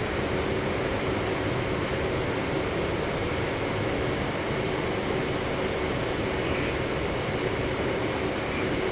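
Steady hum and rushing noise of a metro train standing at a station platform, heard from inside the car.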